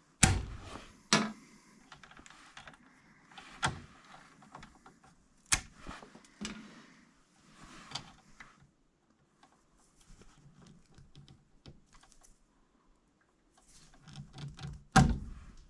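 Wire cutters and strippers working on electrical wire: a series of sharp snaps and clicks at irregular intervals, the loudest near the end, with small handling clicks and rustles between.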